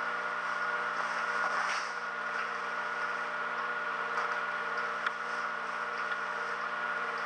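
Steady electrical hum made of several fixed tones over a hiss, with a faint click about five seconds in.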